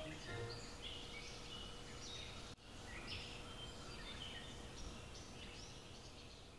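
Faint outdoor ambience of birds chirping: repeated short, high chirps and whistled notes over a soft background hush, with a brief sudden dropout about two and a half seconds in.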